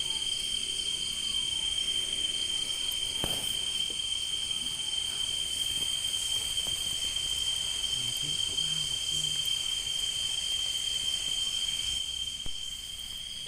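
Steady chorus of crickets and other insects: one continuous high-pitched trill, with fainter, higher trills above it. A single light knock about three seconds in.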